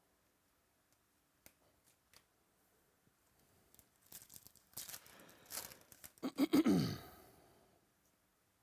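Trading card pack wrapper being torn open and crinkled, a few seconds of tearing and rustling that gets louder and ends in a short falling squeak about seven seconds in.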